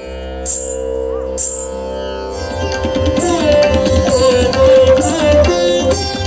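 Indian classical dance music: a sustained drone with a high shimmering percussion stroke about once a second. About two and a half seconds in, a melody with bending notes enters over a fast drum rhythm.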